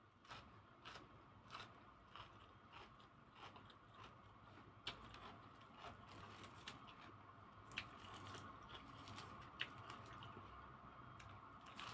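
Faint close-up eating sounds: a person biting and chewing crunchy raw vegetables with grilled-pork salad, irregular crisp crunches and mouth clicks every second or so.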